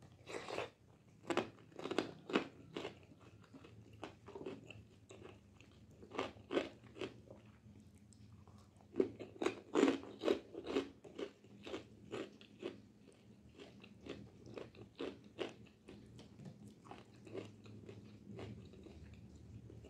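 Close-miked chewing of meatballs and flat rice noodles in spicy broth: a steady run of short mouth clicks, several a second, louder and denser in the first half.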